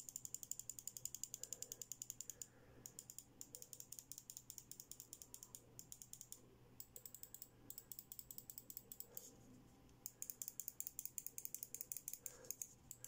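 Lightweight honeycomb-shell gaming mouse being clicked for a sound test: rapid, even runs of light clicks, broken by a few short pauses.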